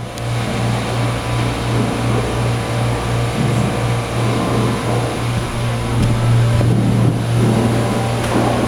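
Steady low hum of running brewhouse machinery, with a noisy rush over it that grows a little louder about two-thirds of the way through.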